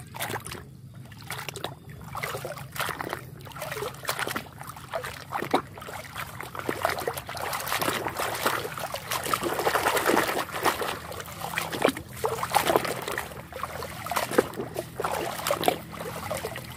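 Water sloshing and splashing in a plastic tub as a hand swishes and scrubs plastic toy trucks under the surface, with drips and trickles in between; the splashing is heaviest around the middle.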